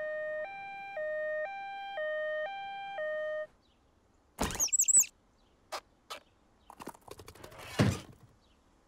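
Cartoon ambulance's two-tone siren, switching between a high and a low note every half second, stopping about three and a half seconds in. Short cartoon sound effects follow: a loud burst with high squeaky chirps, a few clicks, and another loud burst near the end.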